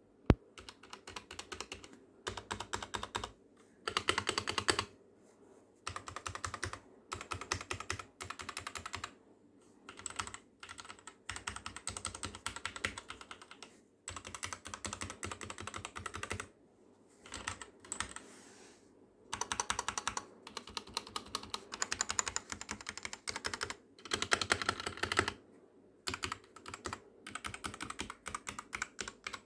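Daxa M84 PRO mechanical keyboard in stock form being typed on, rapid keystrokes in short runs with brief pauses between them, recorded through a phone microphone. The owner calls its stock sound pretty bad.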